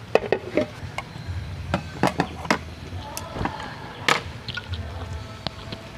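Chopsticks and a metal ladle clinking and tapping against a plastic bowl and dishes: a string of scattered light knocks, a dozen or so.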